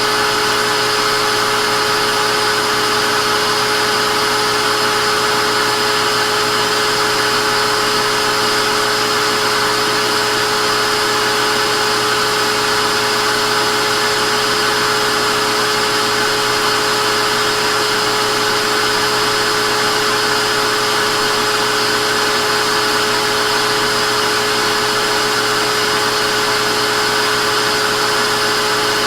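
Vacuum cleaner motor running steadily: a constant rushing whoosh of air with a steady whine, unchanging in pitch and level.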